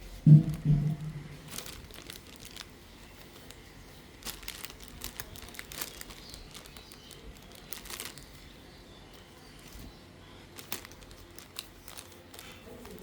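Hands working super light modelling clay: soft crinkling and scattered small clicks, with a low thump about half a second in.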